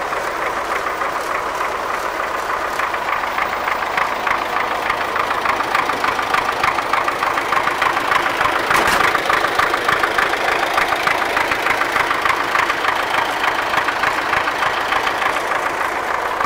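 MTZ-80 tractor's four-cylinder diesel engine idling steadily with a fast, even knock, with a single sharp click a little past halfway.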